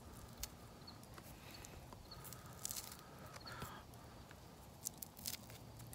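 Quiet chewing and the small crackles of charred skin being picked off hot fire-roasted food by hand: a few scattered soft crunchy clicks.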